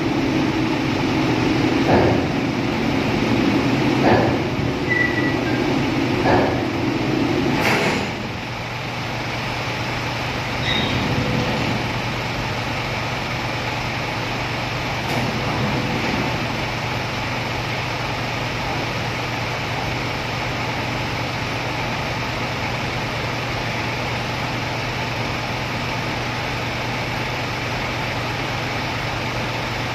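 Truck engines idling on a ferry's vehicle deck, a steady low hum. In the first eight seconds a louder rumble carries a few sharp knocks about two seconds apart, then drops away, leaving the steady idle.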